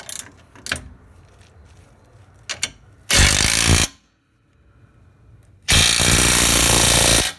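Impact wrench running a bolt home on the sway bar mount in two bursts: a short one about three seconds in, then a longer one of about a second and a half near the end. A few light metal clinks of the tool come before them.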